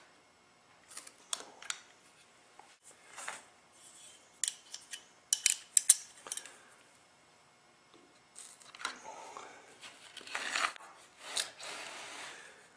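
Handling noises from hand tools at a workbench: a string of sharp clicks and clinks, the loudest in a quick cluster around the middle, then several rough scraping strokes near the end.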